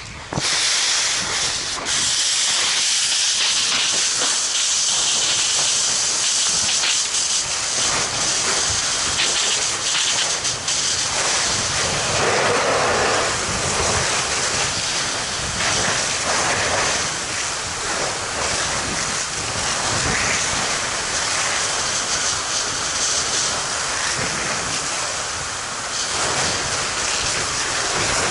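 Fire hose nozzle opened about half a second in, then a steady loud hiss of the water jet spraying onto burning material, with steam hissing off the fire.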